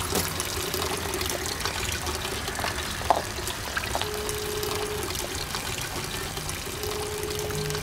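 Water trickling steadily from a fountain tap into a stone basin. Twice, about halfway through and near the end, a telephone ringback tone sounds from a mobile phone, one steady tone about a second long each time, as a call rings unanswered.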